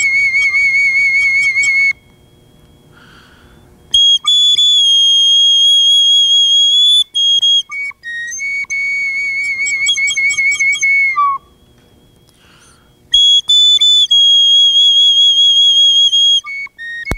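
Native American flute played solo and slowly: long held notes with a wavering vibrato, separated by pauses of a second or two, one note ending in a short downward slide.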